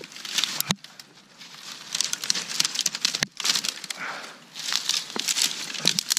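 Dry twigs, sticks and leaf litter crackling and rustling under a person's hands and knees as they crawl through a brushy thicket, in uneven bouts with short pauses.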